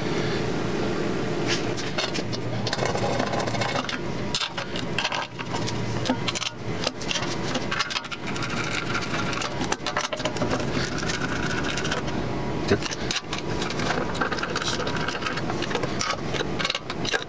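Hand ratchet with an extension clicking in quick runs as bolts are driven into an aluminium engine oil pan, with light metal clinks of bolts and tools, over a steady background hiss.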